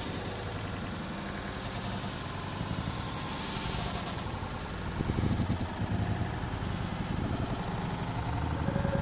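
Street traffic noise: a motor vehicle's engine running with a low rumble that grows louder about five seconds in.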